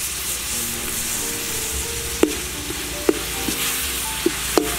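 Sliced garlic and ginger frying in sauce in a metal wok, sizzling steadily while a ladle stirs them. The ladle knocks sharply against the wok four times in the second half.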